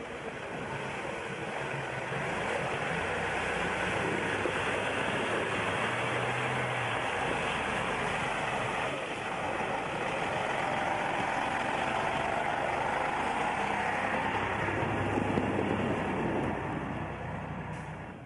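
Ural truck engine working hard as it ploughs through deep snow close by. The sound grows a little after the start, holds steady, then falls away about a second before the end as the truck passes.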